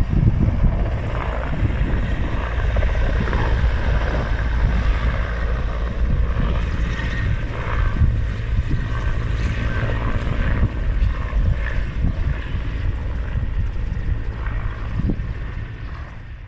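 Helicopter flying past with a steady rotor and engine sound, growing fainter near the end.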